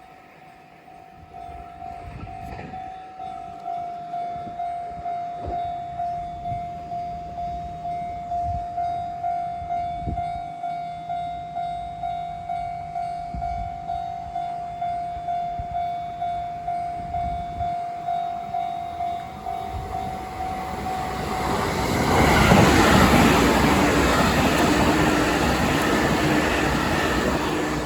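Japanese level-crossing warning bell ringing in even, repeated strokes. About three-quarters of the way through, a JR Tokaido Main Line train runs through the crossing; its rolling wheel and running noise quickly grows to the loudest sound and drowns out the bell.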